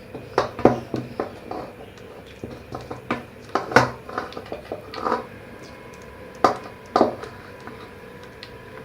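Kitchen dishes and utensils clinking and knocking against each other, a dozen or so irregular sharp knocks, some with a short ring. The loudest come about four seconds in and again about six and a half seconds in.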